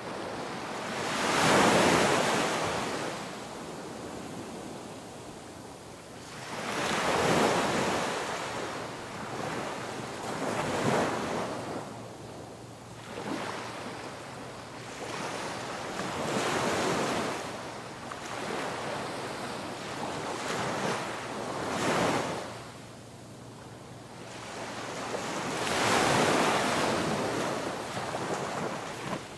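Ocean waves breaking and washing on a shore, each wave swelling up and fading away, one every four to six seconds.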